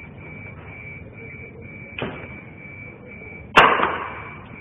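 A lift's overload alarm beeping at one high pitch, about twice a second, the sign that the packed car is over its weight limit. A thump about two seconds in, then a loud bang about three and a half seconds in that dies away over about a second.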